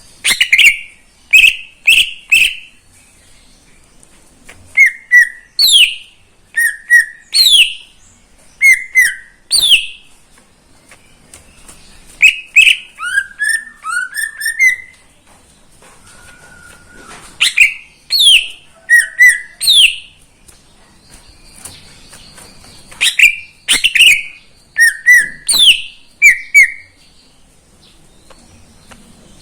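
Green leafbird (cucak ijo) singing: short, clear whistled notes in bursts of two or three, sweeping up and down in pitch. About halfway through comes a quick run of falling notes.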